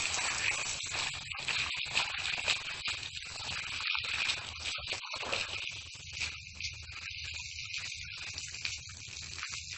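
A dense, crackling hiss, broken by many brief dropouts from about a second in.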